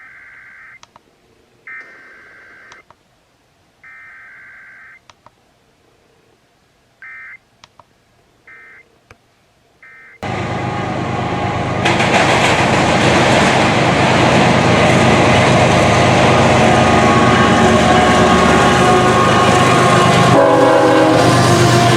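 Emergency Alert System SAME data bursts, heard faintly off the radio: three header bursts of about a second each, then three short end-of-message bursts. About ten seconds in, a loud sustained sound cuts in that plausibly is the EAS two-tone attention signal, stepping up in level a couple of seconds later.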